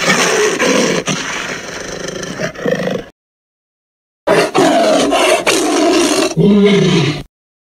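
Two monster roar sound effects made for a fictional dinosaur, each about three seconds long, separated by a second of silence; the second ends in a low, wavering growl.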